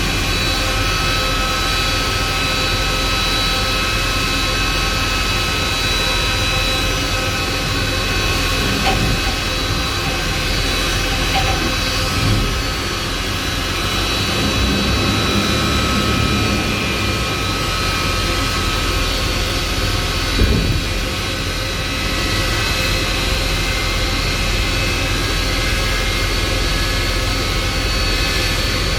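Airbus A300-600 jet engines running steadily: a constant loud rush with several high, steady whining tones, and a couple of brief louder bumps partway through.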